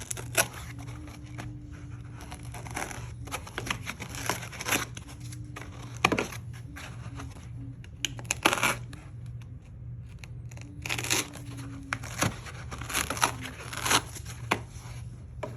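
Layered Kaizen foam being cut with a blade and peeled out in layers: irregular scratchy tearing and crackling strokes, over a steady low hum.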